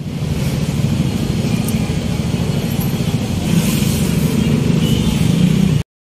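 Busy street traffic: motor vehicle engines running close by, with voices of people in the street, as a steady loud rumble that cuts off abruptly near the end.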